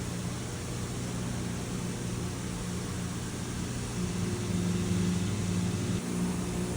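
Grinder motor running steadily with a low hum and hiss, growing a little louder about four seconds in, with a brief dip near the end.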